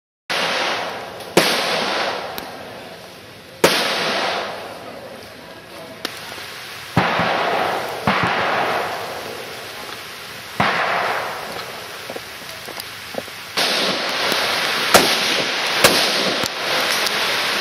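A series of gunshots, about eight sharp bangs at uneven gaps of one to three seconds, each trailing off in a long echo.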